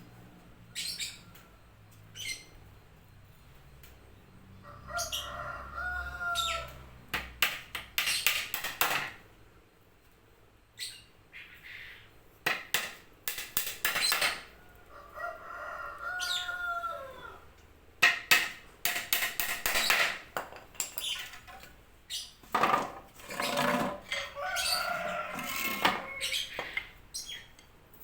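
A rooster crowing three times, spaced about ten seconds apart, with small birds chirping and a scatter of sharp clicks and knocks in between.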